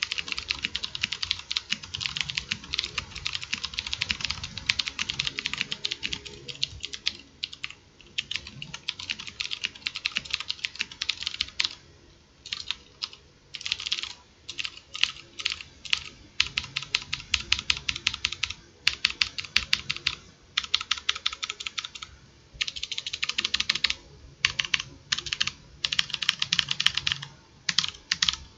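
Fast typing on a HyperX Alloy FPS Pro tenkeyless mechanical keyboard with clicky Cherry MX Blue switches, close-miked: a rapid, continuous clatter of keystrokes, broken by a few short pauses.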